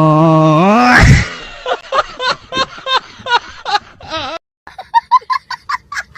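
Comedy sound-effect clips: a held, buzzy tone rises in pitch and ends in a low thud about a second in, then a run of short laughs, and after a brief break a faster, higher-pitched giggle.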